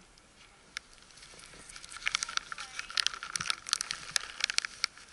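Plastic cat-treat bag crinkling and crackling as a gloved hand squeezes and shakes it, the rattle meant to lure a cat. The crackling starts about a second in and grows denser and louder.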